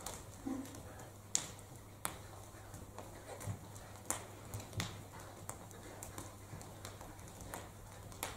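Scattered sharp clicks and taps with a couple of soft thumps near the middle: metal folding chairs clacking as they are swung, and feet on a stage floor. A low steady hum lies underneath.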